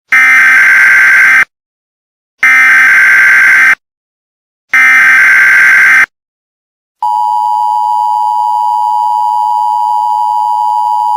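Emergency Alert System opening: three short, harsh digital data bursts of the SAME header, each about a second and a half long with silent gaps between, then the steady EAS attention tone, which starts about seven seconds in and holds.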